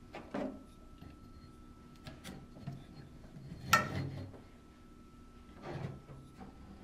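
Aluminum kayak paddle shaft sections and drip guards handled on a tabletop: light rubbing and a few knocks as the shafts are slid, picked up and set down, the sharpest knock about four seconds in.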